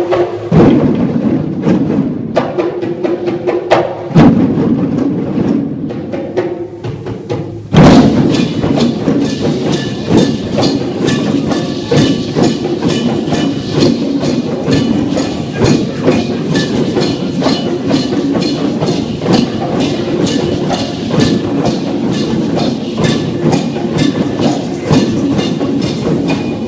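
A large group playing hand drums and percussion together in a drum circle, a rhythm of many overlapping strikes. The playing is sparser at first and becomes loud and dense about eight seconds in.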